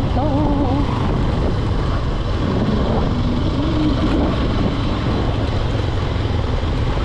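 Motorcycle running steadily while being ridden, with heavy wind rumble on the microphone.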